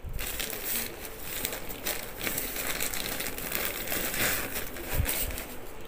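White packing wrapping crinkling and rustling as hands unwrap it from a camera box, with a soft bump about five seconds in.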